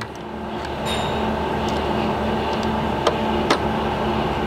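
Screwdriver and screw tapping and clicking against a plastic bracket as a coarse-thread screw is started into a plastic standoff: a ringing clink about a second in, then two sharp clicks near the end, over a steady fan-like hum.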